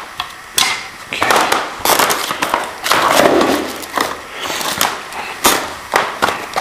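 Packaging and aquarium parts being handled: repeated crinkling and rustling, with several sharp clicks.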